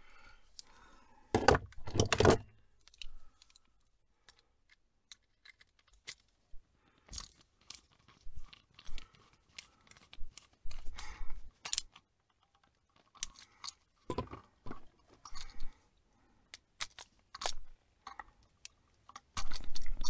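Scattered small clicks and scrapes of a screwdriver and copper wire being worked around a single-pole light switch's screw terminal, with two louder knocks about two seconds in.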